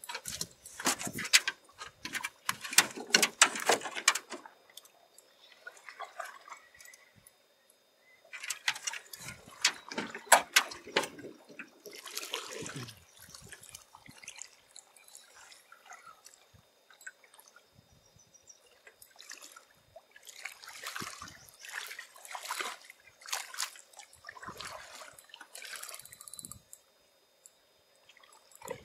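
Lake water splashing and dripping in three spells of sloshing as a person wades in shallow water beside an aluminum boat.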